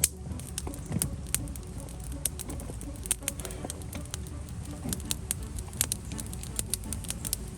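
Wood campfire crackling, with irregular sharp pops and snaps over a low steady rumble of the burning fire.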